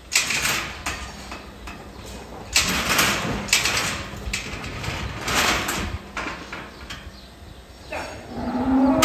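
Cattle: several short bursts of hiss-like noise during the first six seconds, then a cow starts to moo near the end.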